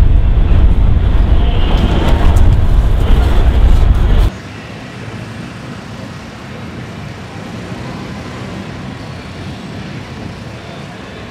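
Heavy wind noise on the microphone with a few handling clicks, cut off suddenly about four seconds in, followed by a steady, quieter hum of city street traffic.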